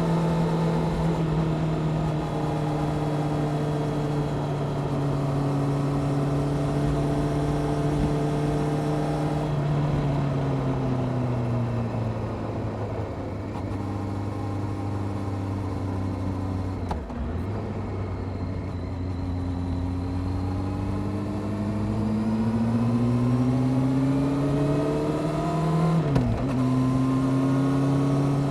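Honda CBR600F Sport inline-four motorcycle engine with a Delkevic aftermarket exhaust, heard while riding: revs hold steady, fall away about a third of the way in, dip briefly at a gear change, then climb steadily under acceleration until a sharp upshift near the end, after which it runs steady again.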